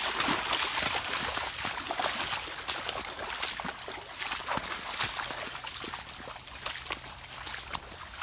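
Water trickling and sloshing, with many small sharp clicks and crackles throughout.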